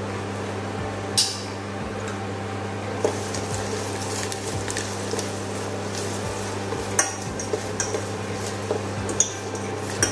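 Chopped garlic and dried red chillies frying in hot oil in a small steel saucepan, with a steady hiss under a low steady hum. A metal spoon stirs and clicks sharply against the pan about five times.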